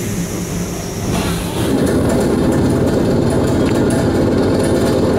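Inside an ET2M electric suburban train: a pneumatic hiss trails off as the doors close. About a second and a half in, a louder steady rumble and hum of the train's machinery and running gear sets in.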